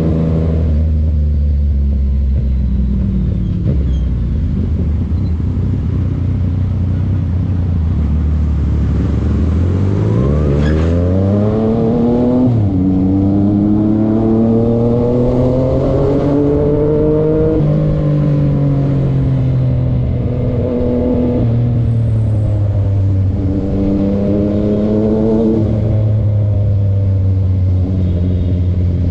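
Yamaha MT-09 inline three-cylinder motorcycle engine running. It holds a low steady rumble at first, then climbs quickly in pitch about ten seconds in and drops sharply. After that the revs rise and fall several more times.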